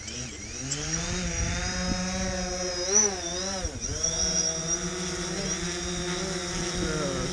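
Quadcopter drone's propellers buzzing as it climbs in sport mode. The pitch rises over the first second or so, wavers twice around three to four seconds in, then holds steady.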